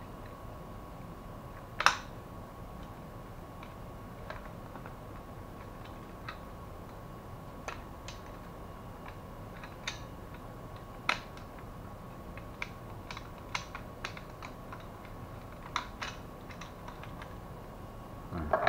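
Scattered light clicks and taps of plastic and metal parts of a laser printer's fuser assembly being handled and unclipped by hand, with a sharper click about two seconds in, over a faint steady tone.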